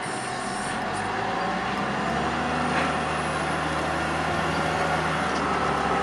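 Diesel engine of a large Volvo wheel loader with a log grapple running steadily as the machine drives carrying a load of logs, a low drone under a broad hiss.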